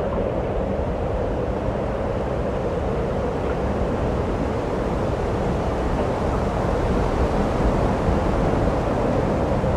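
Steady wind blowing: a loud, even rush with a low rumble underneath, swelling slightly near the end.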